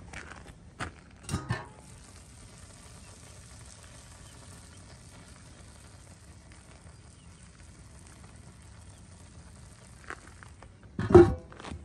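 Metal lid of a Pit Barrel cooker lifted off with a couple of knocks, then a faint steady sizzle from a cast-iron pan of sauced pasta over hot coals. Near the end the lid is set back down with a loud metal clunk.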